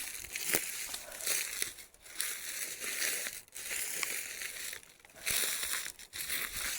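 Footsteps crunching and rustling through dry leaves and brush in the woods, in a run of separate noisy bursts about a second apart.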